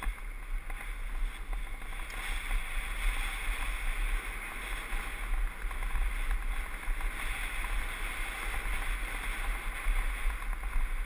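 Mountain bike rolling fast down a dirt trail: a steady hiss of knobby tyres on packed dirt and loose grit, under heavy wind buffeting on the mounted camera's microphone.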